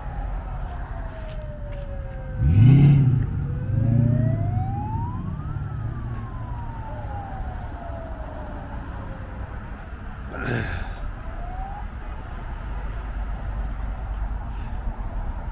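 A vehicle siren wailing, slowly rising and falling, over steady street traffic as a parade of vehicles passes. A loud low blast sounds about two and a half seconds in, and a short sharp sound comes a little past ten seconds.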